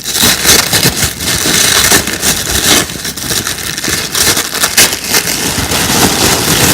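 Packaging being unwrapped by hand: continuous loud rustling and crinkling with many small crackles.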